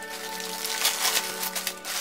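Background music with sustained tones, over a loud crackling rustle of hands handling plastic mushroom trays and their plastic wrap.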